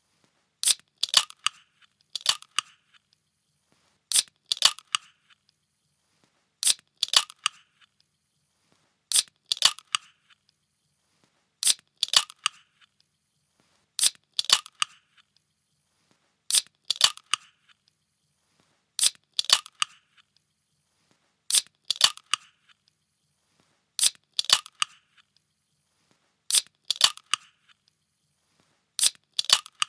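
A ring-pull drink can being cracked open over and over, about once every two and a half seconds. Each opening is a sharp crack of a few clicks followed by a brief hiss.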